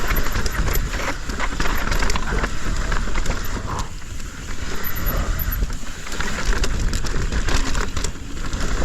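Yeti SB165 mountain bike descending a steep, loose, dusty trail at speed: wind rush and tyres on dirt, with the bike clattering and knocking over brake bumps.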